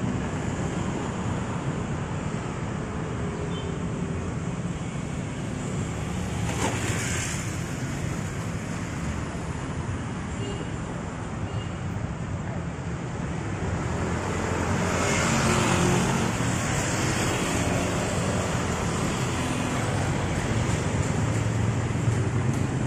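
Street traffic: a steady hum of passing cars and motorcycles, with a vehicle passing closer about a third of the way through and another a little past the middle.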